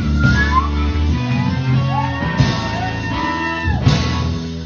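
Live church band music: sustained chords over a heavy bass line, with cymbal crashes about two and a half seconds in and again near the end.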